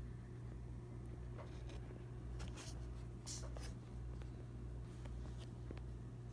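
Quiet room tone: a steady low hum, with a few faint rustling and clicking sounds, the clearest a little past the middle.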